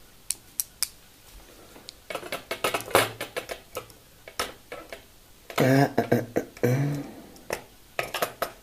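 Small clicks and rattles of model-kit parts and tiny screws being handled and fitted: a few separate ticks at first, then a quick run of clicks. Just past the middle come two short low hum-like sounds, the loudest thing heard.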